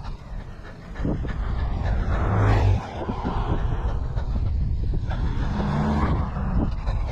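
Road traffic going past, with two vehicles swelling loudest about two and a half seconds in and again about six seconds in, over a steady low rumble of wind on the microphone.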